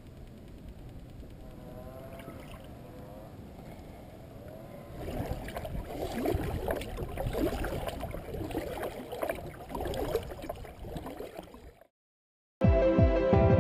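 Kayak paddle strokes in the water, splashing and gurgling, growing louder about five seconds in after a quieter stretch. Near the end the sound cuts out and loud electronic dance music with a heavy beat begins.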